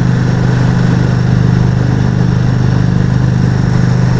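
Motorcycle engine holding a steady drone at highway cruising speed, with a constant rushing noise over it.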